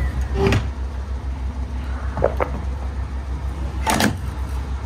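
Engine idling with a steady low pulsing hum, with a few short knocks over it: two close together about two seconds in and a louder one about four seconds in.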